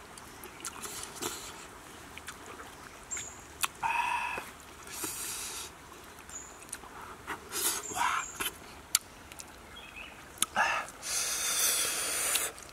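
Close-up eating sounds: fingers tearing apart steamed turtle meat and a mouth chewing with wet smacks. Scattered sharp clicks and a few short noisy bursts, the longest near the end.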